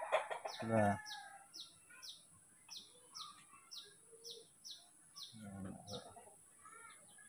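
A small bird chirps over and over, about two short high chirps a second. A hen clucks loudly about a second in and again around five and a half seconds in.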